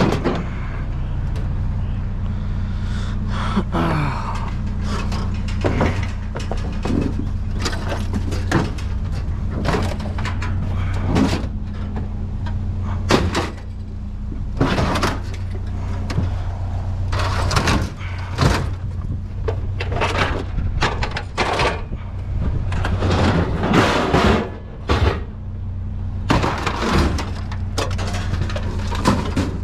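Irregular clanks, knocks and rattles of scrap metal being shifted and handled, thickest in the second half, over a steady low hum.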